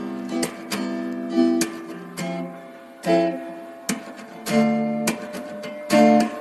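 Acoustic guitar music: strummed chords with sharp attacks, a few strums each second.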